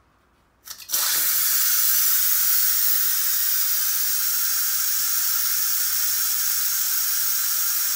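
6-quart Instant Pot electric pressure cooker's steam release valve turned by hand with a couple of short clicks, then, about a second in, a steady hiss of steam venting: a manual pressure release after cooking.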